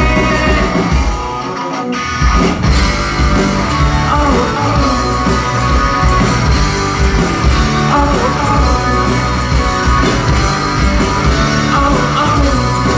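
Live rock band playing, with electric guitar, bass guitar and drums. The bass and drums drop out for about a second, a second or so in, and then the full band comes back in.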